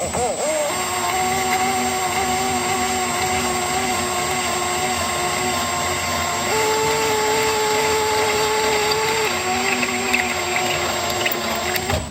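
Power drill running a 20 mm hole saw through a thick cast rocker cover, its motor hum steady over a cutting hiss. About halfway through the motor speeds up for a few seconds, then settles back, and the drill stops near the end.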